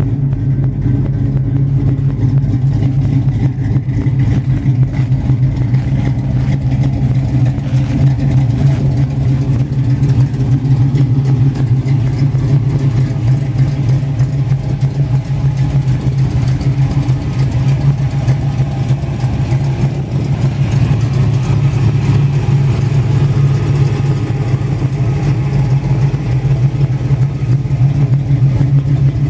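1951 Chevrolet pickup truck's engine idling steadily, a constant low hum.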